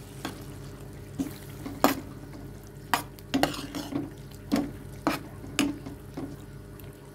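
A spoon stirring yogurt into a thick chicken and kachnar curry in a metal pan, with about ten irregular knocks and scrapes against the pan, every half second or so.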